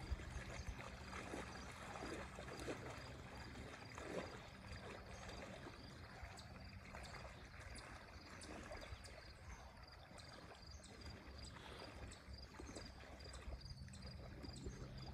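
Faint sloshing and splashing of lake water as two scuba divers wade out thigh-deep.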